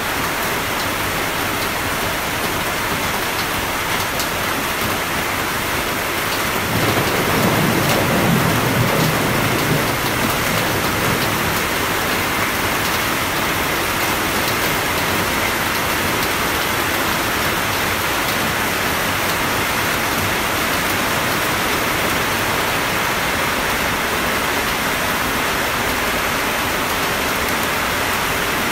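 Steady rain hiss with a low rumble of thunder that starts about seven seconds in, swells and fades out over about four seconds.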